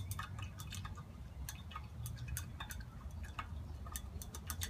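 A chopstick stirring liquid in a glass, ticking irregularly against the glass several times a second.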